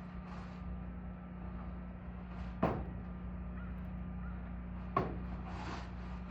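Two sharp knocks, about two and a half seconds apart, over a steady low hum.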